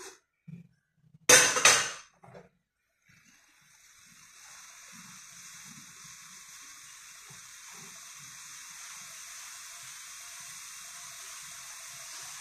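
A metal ladle scraping and clattering in a metal wok once, briefly and loudly, then a few light knocks. From about three seconds in, the liquid in the wok on the gas flame gives a steady hiss that slowly grows louder as it heats.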